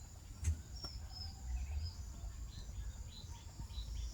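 Small birds chirping: short high chirps, a few at first and then about three a second from about two and a half seconds in, over a low rumble, with one sharp knock about half a second in.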